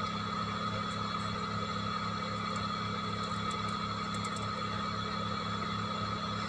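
Steady machine hum with a constant mid-pitched whine running under it; a few faint ticks about three to four seconds in.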